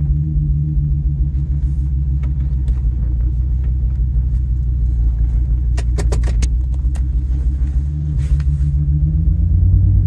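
The 6.8-litre V10 of a 2002 Ford Excursion running at low speed, heard from inside the cab, sounding like absolute garbage: one cylinder is misfiring from a failed ignition coil, so it runs on nine. A quick run of clicks comes a little past the middle.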